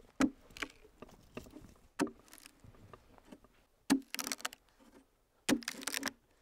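Long-handled chisel driven into the hollow of a pine log: about six sharp wooden knocks, with a crackle of wood splitting and chips breaking away after two of them, near the middle and near the end.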